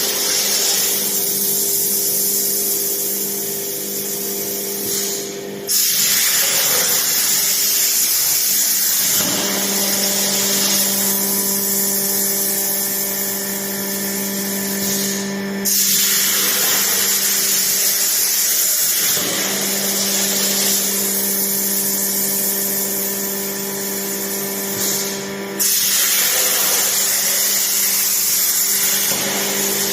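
CNC plasma torch cutting steel flat bar: a loud, steady hiss over a low steady hum. The hiss breaks off briefly and restarts three times, about ten seconds apart.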